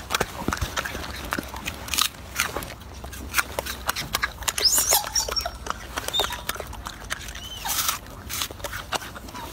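Golden snub-nosed monkey biting and chewing an apple: irregular crunching and wet clicking. A few short high chirps come in around the middle.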